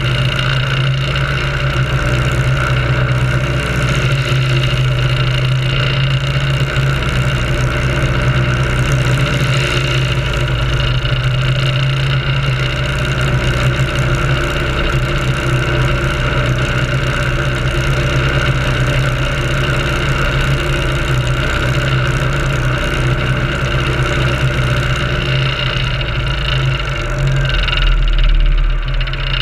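Biplane's piston engine and propeller running steadily, a loud even drone with wind on the microphone; the low rumble grows louder near the end, then eases.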